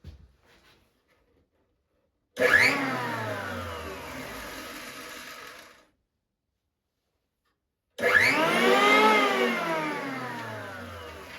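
RYOBI HL-6A jointer's electric motor run briefly twice, whining at speed and then winding down with a steadily falling pitch; the first run cuts off abruptly.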